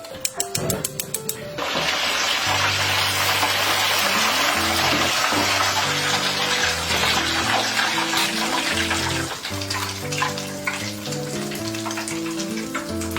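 Water running steadily for about eight seconds, starting suddenly after a few sharp clicks and easing off near the end, with background music playing.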